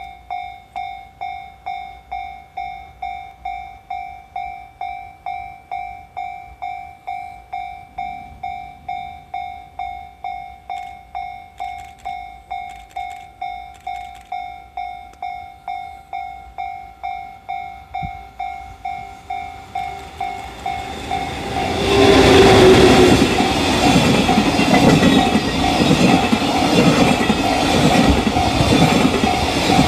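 Japanese level-crossing warning bell ringing, about two strokes a second. Some twenty seconds in, an EF65 electric locomotive and its work-train wagons pass loudly, wheels clattering over the rail joints, while the bell keeps ringing underneath.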